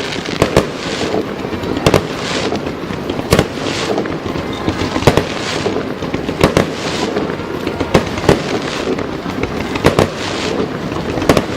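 Aerial fireworks bursting in quick succession, with a sharp bang about every second. Several bursts are followed by a crackling hiss that lasts about a second.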